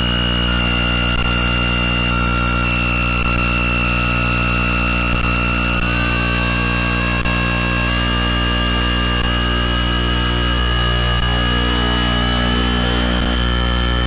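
Dense electronic noise drone: many steady tones layered over a hiss, with a few of the higher tones slowly gliding in pitch around the middle.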